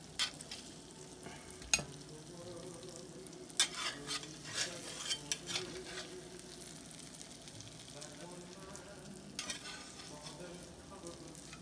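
Metal spatula scraping and clicking against a cast-iron skillet as breaded halibut cheeks are lifted out, over a faint sizzle from the hot pan. The clicks come scattered, with a busier run in the middle.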